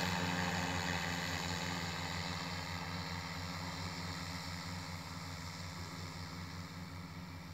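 Multirotor crop-spraying drone's rotors humming steadily as it flies away, growing gradually fainter.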